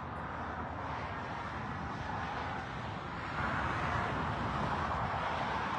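Road traffic passing: a steady hiss of tyres on the road that swells about three and a half seconds in.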